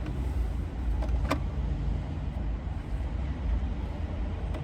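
Steady low rumble, with one short sharp click a little over a second in.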